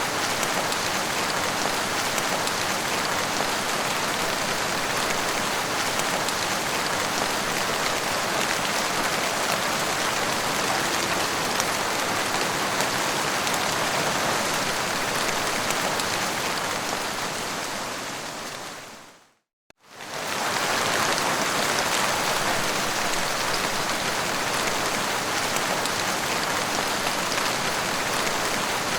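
Heavy rain falling steadily, a dense even hiss. About two-thirds of the way in it fades out to a brief moment of silence, then comes straight back at full strength.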